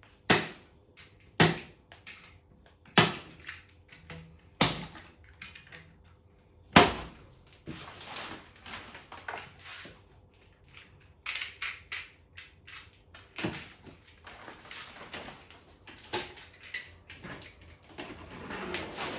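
Five sharp knocks one to two seconds apart, then rustling and scraping with a few lighter knocks: a table saw's packaging and parts being handled during unboxing.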